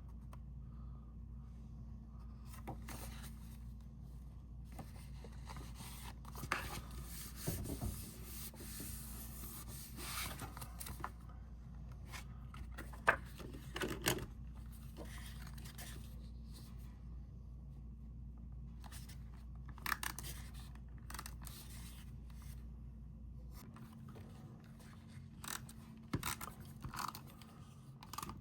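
Cardstock being handled: scattered soft rubs, slides and light taps as pop-up card pieces are slid into place and worked, over a steady low electrical hum.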